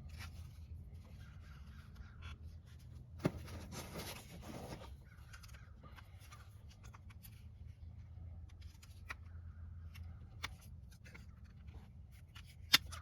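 Plastic retaining tabs of a power window switch cover being pried apart by hand, with faint scraping and sharp clicks, one about three seconds in and the loudest near the end as a tab pops free.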